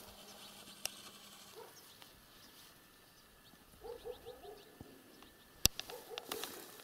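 Faint bird calls: a quick run of about four short, low notes about four seconds in and again near the end, with faint high chirps among them. A single sharp click comes shortly before the end.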